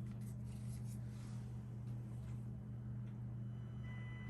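Radio scanner speaker giving a steady low hum. About three and a half seconds in, faint steady high tones come in: interference from the freshly powered Wyze Cam Spotlight Kit's LED light, picked up by the scanners on 156.015 MHz.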